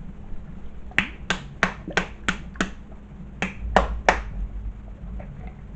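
Finger snapping: nine sharp snaps at about three a second, a run of six and then three more after a short pause.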